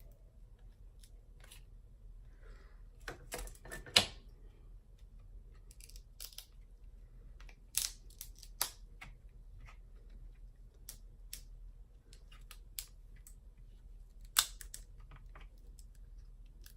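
Kitchen scissors snipping and cracking through crab leg shells: scattered sharp clicks and cracks, with the loudest snaps about four, eight and fourteen seconds in.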